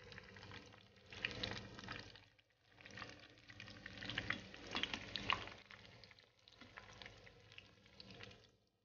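Samosas and rolls deep-frying in a pan of hot oil, sizzling and crackling while a wire-mesh skimmer stirs and turns them. The crackling swells about a second in and again around four to five seconds, then eases off near the end.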